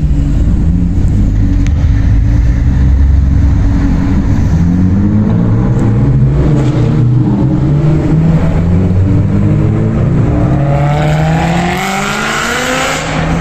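Liberty Walk Nissan Skyline R34's straight-six engine running through a loud aftermarket exhaust, a deep, steady rumble as the car rolls slowly past. About ten seconds in it revs up, and the pitch climbs toward the end.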